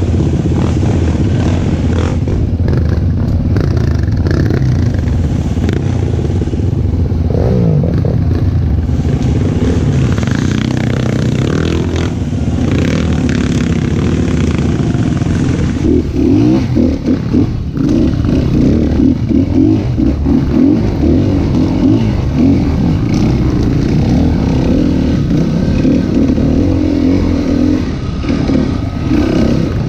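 Dirt bike engine ridden close up, revving up and down with the throttle, louder and more uneven from about halfway through. The bike clatters over the rough trail.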